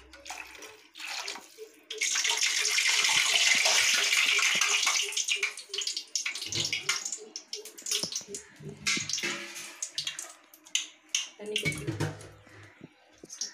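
Water poured into a kadai in one steady, splashing pour lasting about three seconds, starting about two seconds in. Scattered clinks and knocks of utensils follow.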